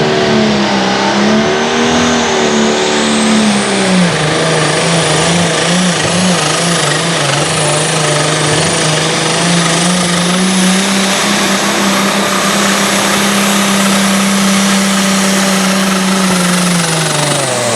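Pulling tractor's engine at full throttle during a pull with the sled. The note wavers for about four seconds, then holds steady over a high whine that climbs at the start and stays up. The engine winds down near the end.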